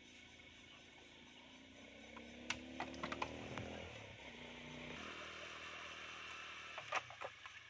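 Small motorbike engine passing along the road: its pitch rises as it nears, holds, then drops and fades away. A few sharp clicks and knocks come about two and a half seconds in and again near seven seconds, over a steady high-pitched hiss.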